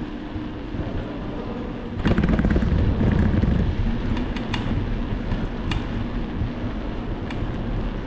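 Low rumbling wind buffeting on the microphone while moving through a rock-cut tunnel, jumping louder about two seconds in, with scattered clicks and rattles.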